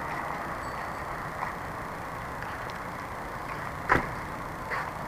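Steady running noise of a vehicle moving along a road, with one sharp knock about four seconds in and a couple of fainter clicks.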